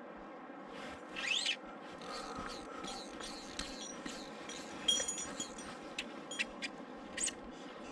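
Fly reel clicking in short rising buzzes and sharp clicks while a hooked white-spotted char is played, over the steady rush of river water.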